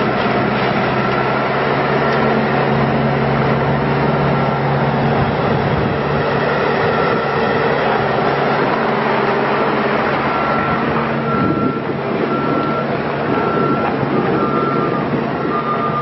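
2011 Bobcat S750 skid steer's diesel engine running steadily as the loader drives and turns on gravel. A backup alarm sounds in repeated short beeps, clearest in the second half.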